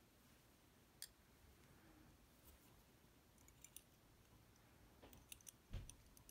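Faint, scattered small metal clicks from the parts of a Basi K10 lock and the tools working its pins out, with a dull thump near the end.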